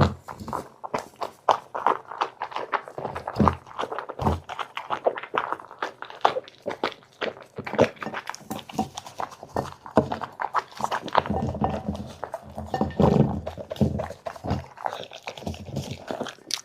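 Dog chewing and crunching food close to the microphone: a fast, irregular run of sharp crunches, clicks and wet smacks.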